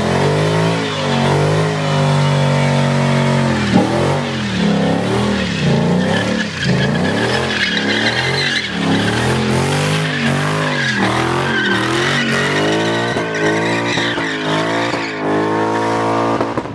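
Car engine revved hard during a burnout, its pitch held high at first, then rising and falling over and over about once a second, with tires squealing over it.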